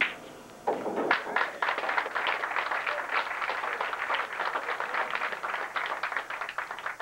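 A sharp click of a cue striking the cue ball, then, about a second in, a crowd of onlookers starts applauding and keeps clapping steadily.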